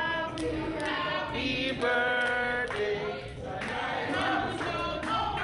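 Singing with music, the voices holding long notes over a steady beat.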